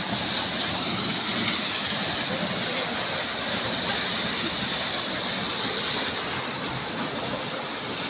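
Mountain waterfall pouring down a rock face and splashing onto stones: a steady, even rush of falling water.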